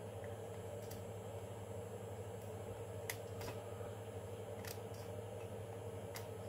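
Flush cutters snipping leftover brim off the base of a 3D-printed plastic part: about five sharp clicks, the loudest a few seconds in, over a steady low hum.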